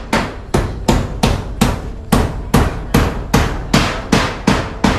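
A hammer driving nails while roofing, with quick, evenly spaced blows at close to three strikes a second, each one ringing briefly.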